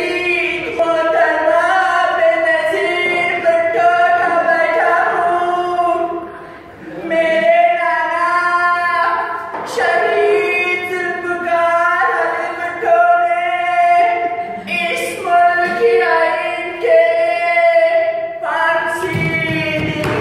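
A high voice singing unaccompanied, long held wavering notes in phrases with short breaks, and one longer pause about six to seven seconds in.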